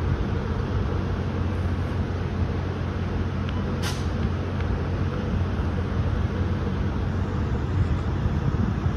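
Capitol Corridor passenger train pulling away from the platform: the steady low rumble of its diesel locomotive and the cars rolling on the rails. A short, sharp hiss of air comes about four seconds in.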